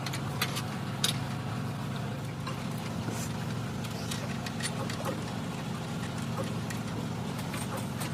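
An engine idling steadily, with scattered light clicks over it.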